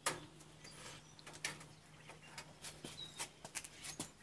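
Small, irregular clicks and ticks of thin sheet-metal parts and wires being handled and pulled on a stripped toaster frame, the sharpest click right at the start, over a faint steady low hum.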